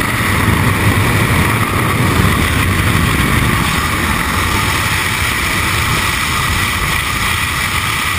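Loud, steady rush of slipstream wind and propeller-engine drone at the open door of a skydiving aircraft in flight, buffeting the microphone.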